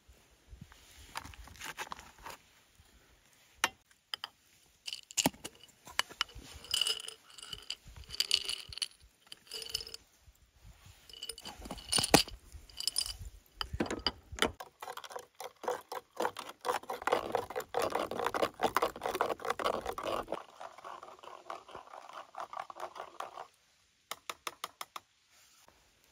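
A metal spoon clinking and ringing against a copper Turkish coffee pot (cezve) and a coffee bag as ground coffee is spooned in. Then a spoon stirs rapidly inside the pot with a fast, steady scraping. Near the end comes a quick run of sharp clicks.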